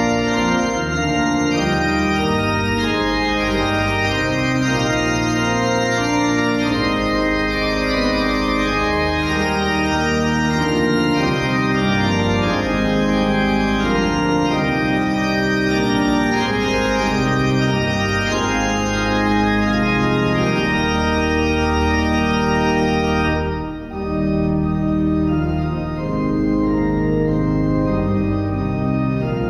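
Organ playing a hymn tune in sustained chords that change every second or so, with a short break between phrases about 24 seconds in.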